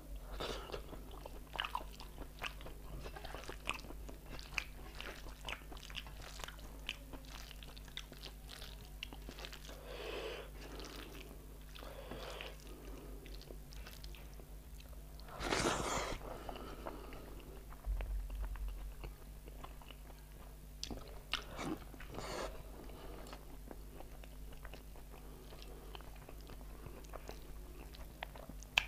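Close-miked chewing of a mouthful of rice and spicy egg curry, with many short wet lip smacks and mouth clicks, and one louder, longer mouth sound about halfway through.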